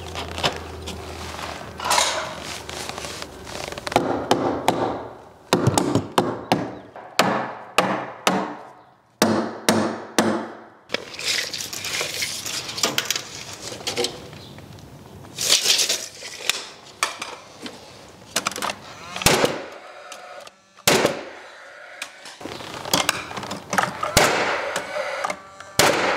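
Carpentry handling noise: a wooden stud being knocked and tapped into place in a window frame, with many irregular sharp knocks and thuds and scraping of lumber in between.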